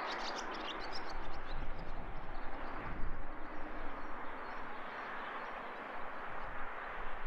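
Outdoor hilltop ambience: a steady wash of distant background noise, with birds chirping briefly at the start. Uneven low rumbles of wind buffet the microphone through the middle.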